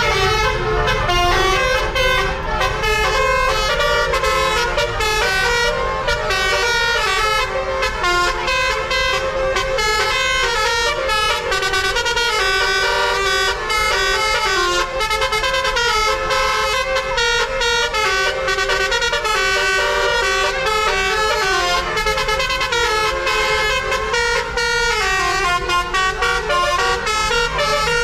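Tour bus telolet horn playing a continuous rapid melody, its notes changing every fraction of a second, over the low rumble of the bus engine.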